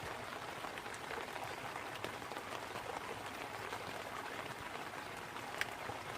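Rain pattering on a tarp overhead, a steady hiss of drops with scattered small ticks, over a babbling brook. One sharper click about five and a half seconds in.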